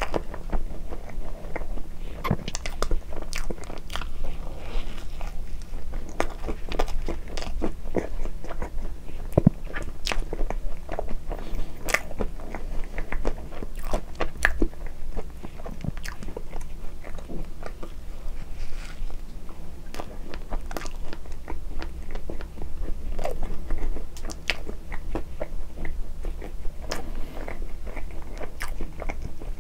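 Close-miked mouth sounds of a person chewing soft cream-filled red bean bread: many small clicks and squelches from the mouth, with another bite taken near the end.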